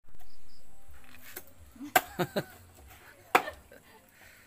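Cleaver blows chopping snake meat on a wooden board: three quick chops about two seconds in, then one more about a second later.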